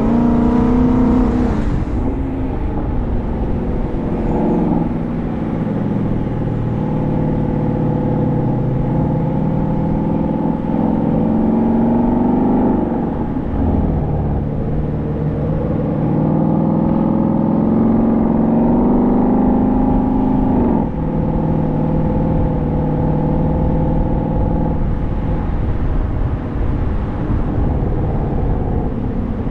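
Car engine pulling hard through the gears. Its pitch climbs steadily and drops back at each upshift, about 5, 13 and 21 seconds in, over a steady rumble of road noise.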